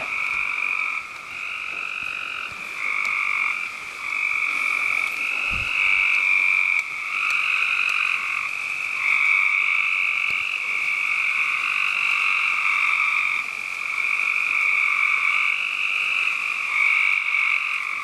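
A dense night chorus of frogs, many overlapping trilled calls about a second long each, running on without a break.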